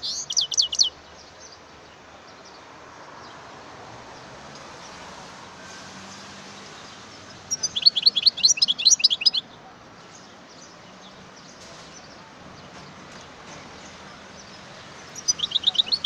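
European goldfinch (male chardonneret) singing in short bursts of rapid, high twittering notes. One phrase ends about a second in, another lasts about two seconds in the middle, and a third starts near the end, with a faint steady hiss between them.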